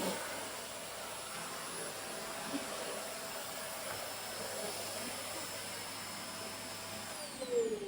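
Vacuum cleaner running steadily with its brush attachment, a rushing whoosh under a thin motor whine. Its pitch drops away near the end as the motor winds down.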